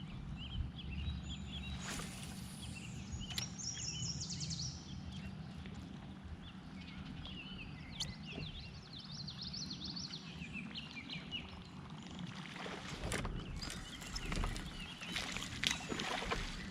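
Small birds chirping repeatedly over a steady outdoor background along a creek, with a few brief splashes or knocks from around the kayak.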